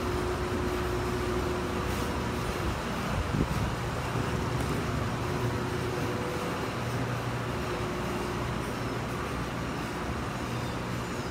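Steady low rumble and hum of background machinery, with one brief thump about three and a half seconds in.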